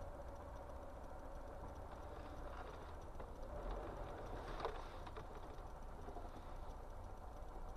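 Faint, low traffic rumble heard from inside a car through a dashcam microphone, swelling a little around the middle as a city bus pulls by close alongside.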